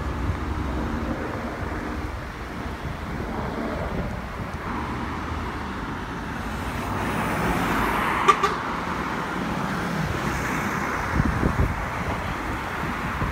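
Road traffic passing at the roadside: cars and a lorry driving by with engine and tyre noise. A brief sharp click about eight seconds in is the loudest moment.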